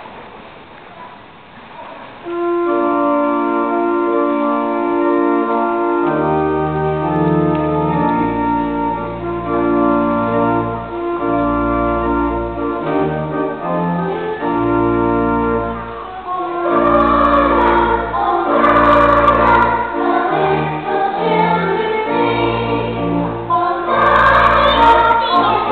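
Organ playing an introduction of steady held chords that start about two seconds in, with deep bass notes joining a few seconds later. About two-thirds of the way through, a children's choir starts singing along with the organ.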